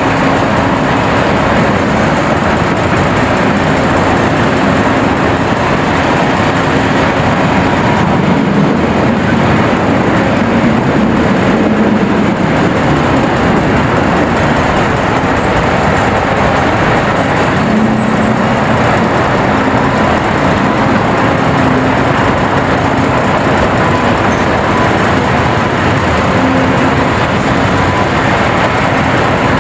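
Heavy diesel mining machinery running steadily: a large LiuGong hydraulic excavator working as it digs rock beside a mining dump truck.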